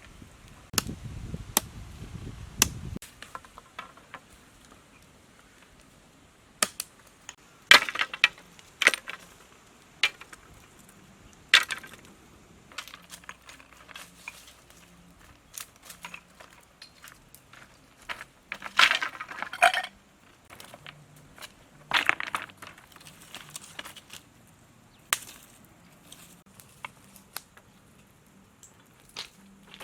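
Irregular clicks, knocks and clinks of objects being handled, with a few longer crunching or scraping bursts.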